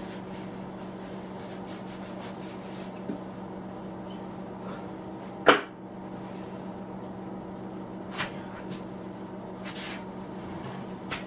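A sharp, loud clunk of metal parts about halfway through and a few lighter knocks and clicks, from Bridgeport milling machine parts being handled and fitted, over a steady electrical hum.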